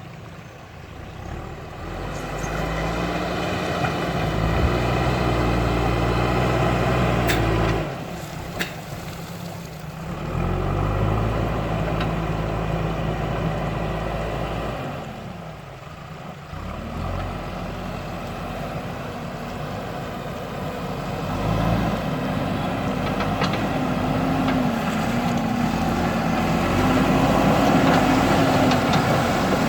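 JCB backhoe loader's diesel engine running under varying throttle as it works, its note rising and falling and dropping away briefly twice, with a few sharp metallic clanks about eight seconds in.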